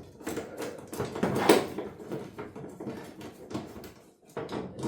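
Metal TV wall mount brackets being handled and hooked onto the wall plate: irregular clicks, knocks and rattles, loudest about a second and a half in.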